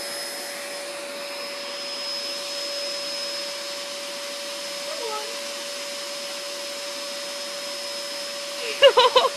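A brand-new upright vacuum cleaner running steadily: an even motor hum with a constant high whine over a rushing hiss. Near the end a loud, quickly wavering voice breaks in over it.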